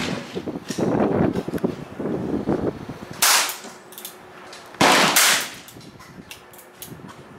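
.22 pistol firing two shots about a second and a half apart, each a sharp crack with a short echo trailing after it.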